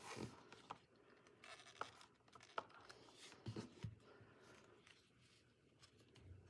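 Faint handling sounds of fabric being folded and pressed onto foam core board: soft rustling and scraping, with a few light clicks and taps in the first four seconds as a hot glue gun is handled.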